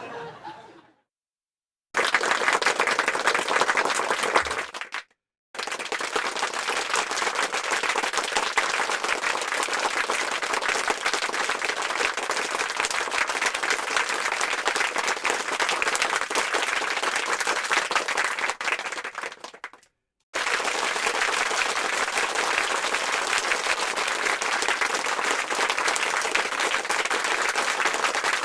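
Three applause sound effects in a row: a crowd clapping densely and evenly, each clip separated by a brief silence. The first is short; the second and third each run for about ten seconds or more.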